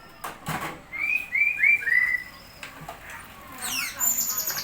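A tame murai (magpie-robin) calling: a short noisy rustle at the start, then four clear down-slurred whistled notes in quick succession about a second in, and near the end a fast falling sweep followed by rapid, very high chattering notes.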